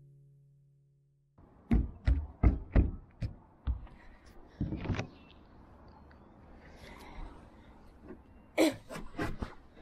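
Guitar music fading out at the start, then a quick run of about eight sharp knocks and thuds, and a few more near the end.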